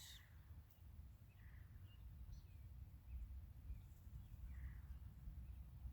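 Near-silent outdoors: a few faint bird calls and chirps over a low steady rumble.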